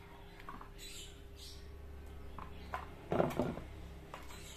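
Handling noise from a perforated-steel switching power supply and a plywood board being moved about on a tiled floor: scattered small knocks and scrapes, with a short clatter of scraping about three seconds in.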